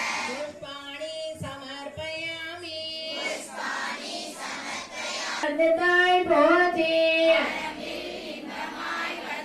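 Women and children singing a devotional song together, in two phrases with long held notes, the second one louder.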